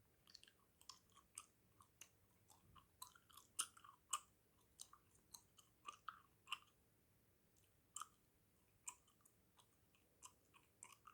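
Close-miked chewing gum: soft, irregular wet smacks and clicks of the mouth working the gum, several a second at times, with short gaps.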